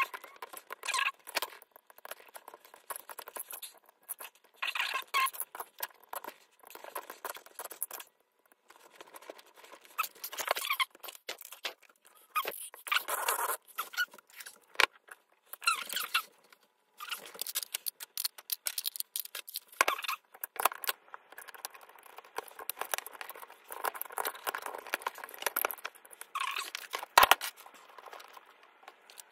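Hands handling the plastic chassis, wires and small parts of a Traxxas 4-Tec 2.0 RC car: irregular small clicks, scrapes and squeaks with short pauses between, and one sharp click near the end.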